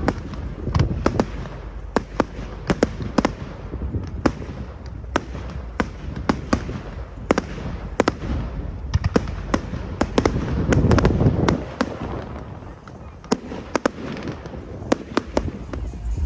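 Fireworks going off: many sharp bangs and cracks at irregular intervals, with a deeper, louder boom about eleven seconds in.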